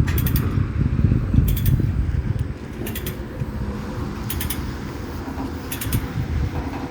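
Backhoe loader's diesel engine running with a heavy low rumble that eases off about two seconds in, with sharp metallic clicks recurring about every second and a half.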